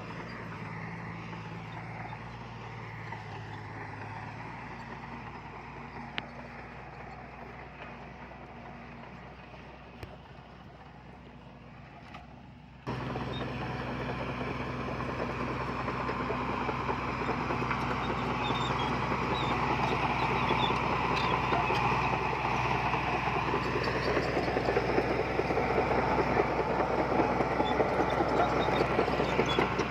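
Diesel engine of heavy earthmoving machinery running steadily. About 13 seconds in the sound jumps abruptly to a louder engine note that keeps growing, with scattered light metallic clinks.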